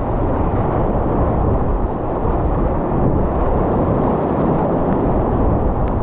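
Whitewater rapids rushing around a paddle raft: loud, steady, deep rushing of churning river water.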